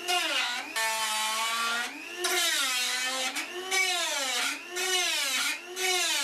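Small handheld rotary tool grinding rusty sheet-steel floor pan to clean off an old repair. It makes a high whine that dips and rises in pitch over and over as the bit is pressed onto the metal, in runs of about a second with short pauses between.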